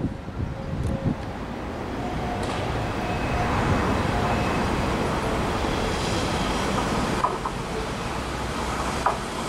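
Kintetsu 80000 series Hinotori electric limited-express train approaching on the track: a steady running rumble that builds slowly, with faint steady tones over it and one sharp click near the end.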